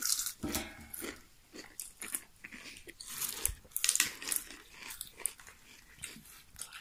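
Potato chips being bitten and chewed, in irregular crisp crunches close by.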